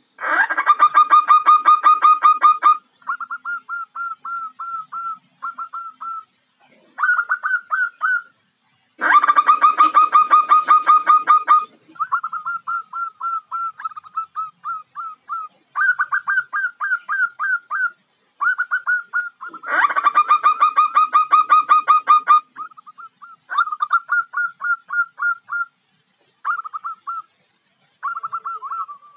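Female zebra dove calling in fast runs of short staccato coos, about eight notes a second, in bouts of one to three seconds with short pauses. Three bouts, near the start, about nine seconds in and about twenty seconds in, are louder and harsher than the rest.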